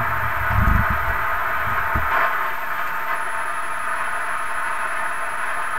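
Hammarlund SP-600 vacuum-tube communications receiver turned up, its speaker giving a steady static hiss with no station coming through, with a low rumble in the first two seconds. The empty band noise is what the operator takes to mean the skip may be gone.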